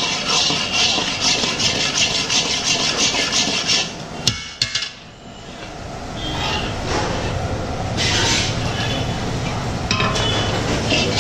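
Metal spatula scraping and stirring thick Mysore pak mixture of gram flour and ghee in an iron kadai, in quick repeated strokes. There are a couple of sharp clicks about four seconds in, then a short lull before the scraping picks up again.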